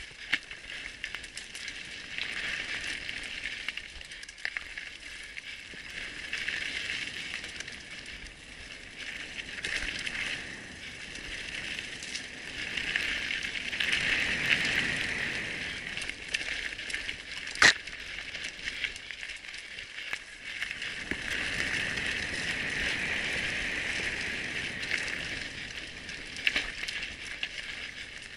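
Mountain bike rolling along a dirt trail: tyres on the ground and the chain and frame rattling over bumps, getting louder and softer as the pace changes. There is one sharp clack about two-thirds of the way through.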